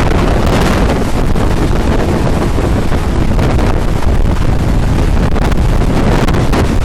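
Strong wind buffeting the microphone: a loud, continuous low rumble broken by rapid fluttering gusts.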